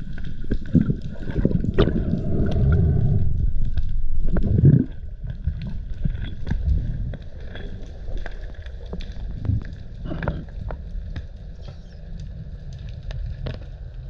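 Underwater water noise from a spearfisher swimming down: low rumbling surges of water movement, loudest for the first five seconds, then quieter, with scattered small clicks throughout.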